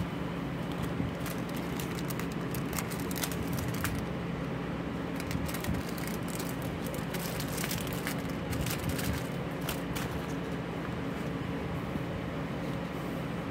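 Craft supplies being handled and put away on a tabletop: scattered light clicks and the crinkle of plastic sequin packets, over a steady low hum.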